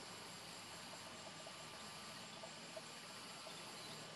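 Faint, steady insect chorus, crickets with a thin unbroken high trill, over a low background hiss.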